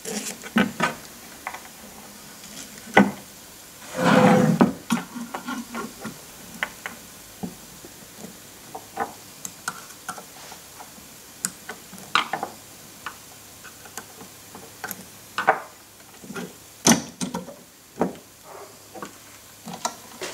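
Small metal parts being handled and fitted by hand: scattered clicks, taps and knocks of screws, aluminium spacers and a screwdriver against a stepper motor and an aluminium rail, with a longer scraping rustle about four seconds in.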